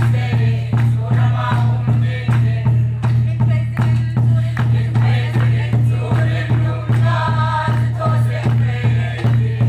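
Congregation singing a hymn together over a large barrel drum beaten in a steady, even beat of about two and a half strokes a second.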